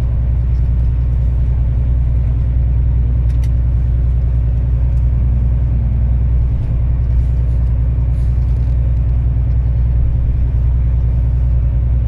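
Steady low rumble of a road vehicle cruising at speed, engine and tyre noise heard from inside the cabin through closed windows.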